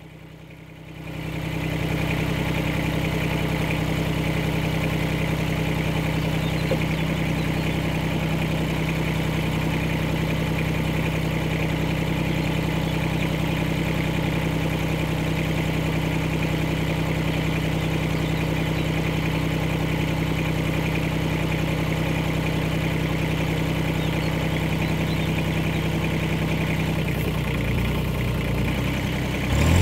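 Kubota B1161 compact tractor's three-cylinder diesel engine idling steadily. Near the end it begins to rev up.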